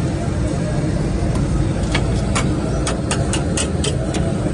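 A metal spatula clinks sharply against a flat griddle, about eight quick strikes in the second half, over a steady low rumble.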